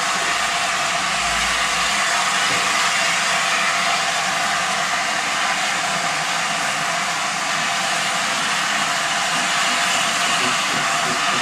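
Steam hissing steadily from an LNER A4 Pacific steam locomotive standing at the platform: one continuous hiss with no chuffing.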